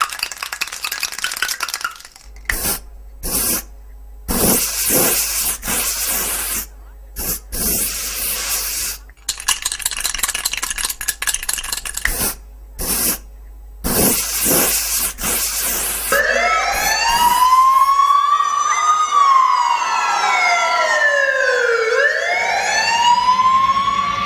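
Loud edited dance-routine soundtrack over loudspeakers: choppy bursts of harsh, static-like noise broken by short silences, then from about two-thirds through a siren-like effect of several swooping tones rising and falling and crossing one another.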